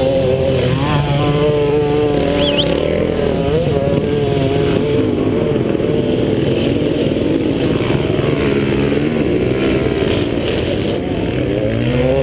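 Dirt bike engine running close by, its pitch wavering, then rising near the end as the throttle is opened.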